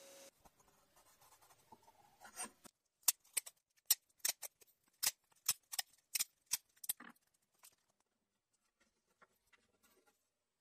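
Short sharp clicks and rubbing from a small wooden disc being handled and pushed into the end of a PVC pipe: about a dozen quick taps from two to seven seconds in, then only faint ticks. A faint steady machine hum stops just at the start.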